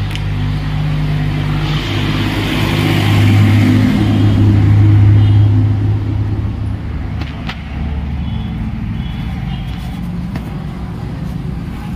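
A motor vehicle engine running with a steady low hum. It grows louder about three to five seconds in, then eases off.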